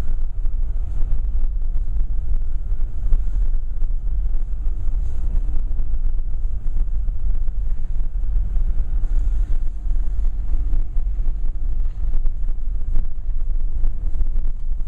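Wind buffeting the microphone: a loud, uneven low rumble that swells and dips with the gusts.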